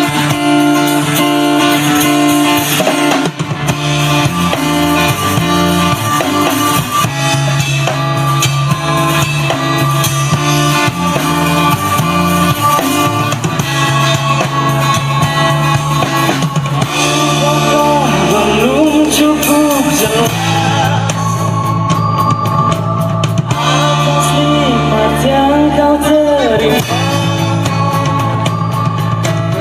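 A band playing a rock song: drum kit, guitars and bass, loud and continuous.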